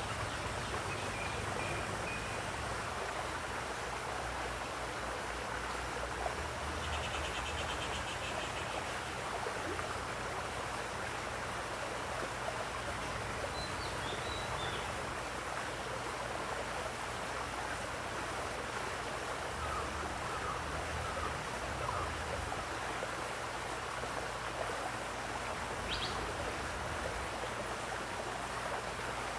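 Steady running water with an even splashing hiss, with a few faint, brief bird chirps and trills scattered over it.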